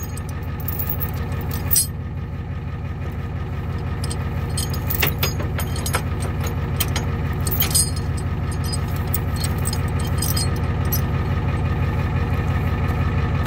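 Tow truck's engine running steadily with an even low rumble, growing gradually louder, as it drives the hydraulic wheel-lift to set the car down. A few sharp metallic clicks come over it.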